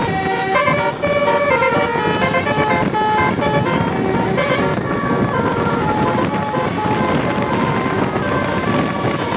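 Bus telolet horn of the Basuri type playing a melody of short held notes that step up and down in pitch, over the steady noise of the bus. The melody grows fainter after about five seconds.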